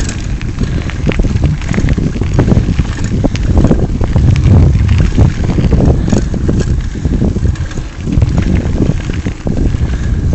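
Wind buffeting the microphone of a camera carried on a moving bicycle, a steady low rumble, with frequent small knocks and rattles as the bike rolls over a rough gravel trail.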